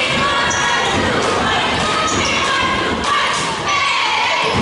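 A basketball being dribbled on a hardwood gym floor, with a crowd of spectators shouting and cheering.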